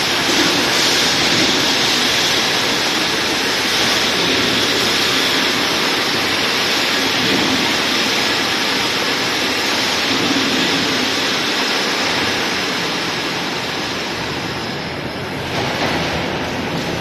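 Loud, steady rushing noise of factory machinery, with no clear rhythm or pitch. It thins slightly near the end.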